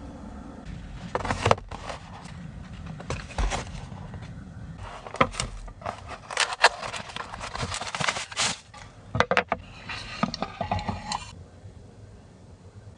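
Irregular clicks, rustles and light knocks of objects being handled, over a low steady rumble; the handling stops about two seconds before the end.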